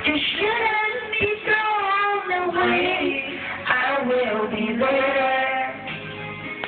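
Music with high-pitched singing, with held notes that bend in pitch.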